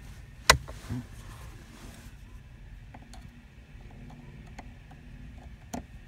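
Phillips screwdriver backing out a small screw from the ignition lock cylinder housing: a sharp click about half a second in, a softer one just after, then faint scattered ticks of metal on metal and another click near the end.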